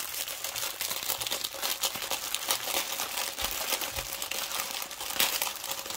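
Plastic crinkling and rustling as a diamond painting kit is handled, its plastic-covered canvas and bags of drills, with many small crackles and a couple of soft low thumps about halfway through.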